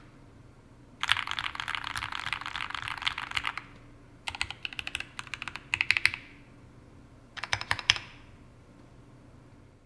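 Sneakbox AVA Alice-layout custom mechanical keyboard being typed on: Tangerine v2 linear switches with PE stems on an aluminium plate, GMK keycaps, dampened with a PE sheet and shelf liner. A quick run of keystrokes about a second in, then a few separate presses, and a short cluster near eight seconds in.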